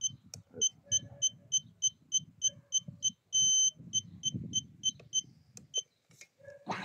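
RC boat transmitter beeping as its steering trim is stepped, about three short beeps a second with one longer tone about halfway through, stopping about six seconds in. Right at the end a louder sound with a falling pitch begins.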